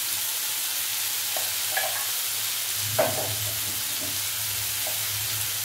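Onion and tomato masala sizzling steadily in oil in a frying pan, with a few light clicks, the sharpest about three seconds in.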